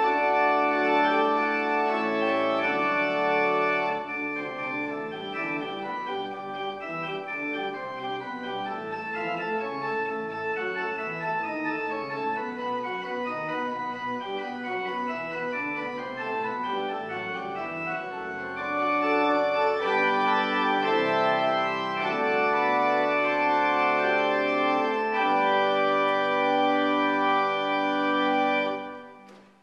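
Church organ playing sustained chords, softer from about four seconds in and swelling louder again past the middle, then stopping shortly before the end.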